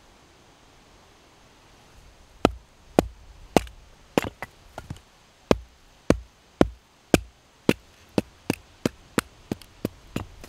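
A wooden mallet striking the back of a hatchet set in a log round, driving the blade in to split the wood: about twenty sharp knocks, starting about two and a half seconds in and coming faster near the end.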